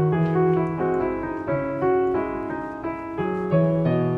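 Background piano music: a melody of distinct notes over a lower accompaniment.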